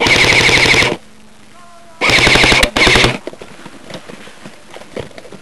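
Airsoft rifle firing two bursts of full-auto, each about a second long, the second coming about two seconds in, rapid even shots with a whine running through each burst.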